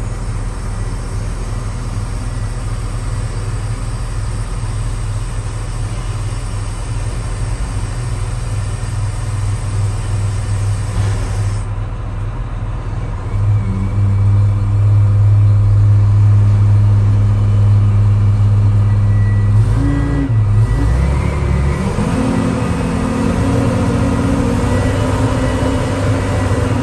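Car engine running after its accelerator pedal was recalibrated. The engine note gets louder about halfway through, then shifts in pitch briefly about three-quarters of the way in before settling.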